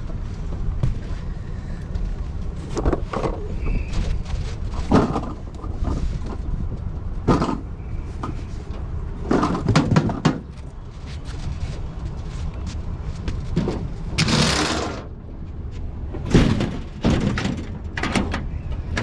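Steady low rumble of a vehicle on the move, with scattered knocks and rattles and a brief rushing hiss about fourteen seconds in.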